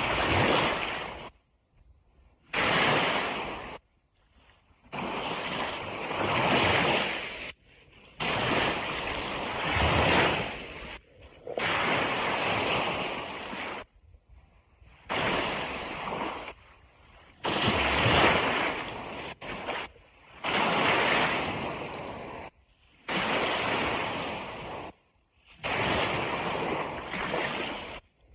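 Ocean surf washing onto a beach in repeated surges every second or two. The sound cuts out abruptly to near silence between some of the surges.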